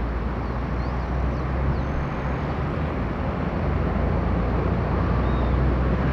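Distant, steady rumble of an approaching Boeing 777-300ER's GE90 engines on final approach, slowly growing louder. A few faint bird chirps sound about a second in and again near the end.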